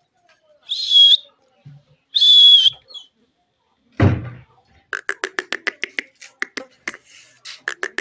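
Alexandrine parakeet (pahari parrot) giving two loud, shrill screeches, then, after a brief low thump, a rapid run of short clicking chatter notes, about six a second.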